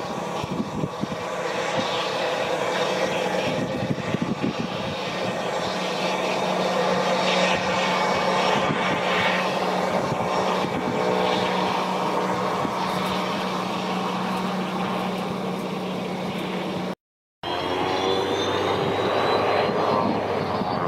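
Cessna Citation CJ1 business jet's twin turbofan engines running as it taxis, a steady whining drone with a low hum. After a brief dropout near the end, a high engine whine rises in pitch.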